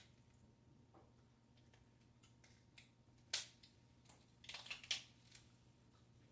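Snow crab being eaten: mostly near silence broken by a few faint, sharp shell clicks and cracks, one about three seconds in and a quick cluster around five seconds.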